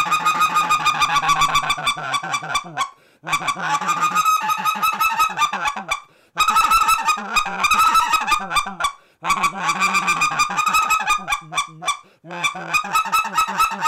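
Specklebelly goose call blown by mouth in rapid runs of short clucks, about eight a second, in stretches of two to three seconds with brief breaks. The fast machine-gun clucks mixed with scratch clucks imitate white-fronted geese feeding or moving about in a field.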